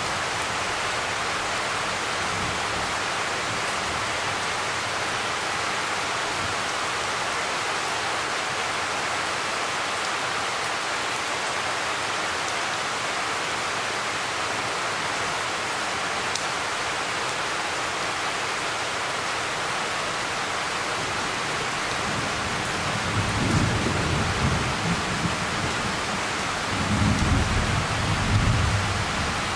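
Steady heavy rain hissing down in a tropical thunderstorm, with two low rolls of thunder near the end.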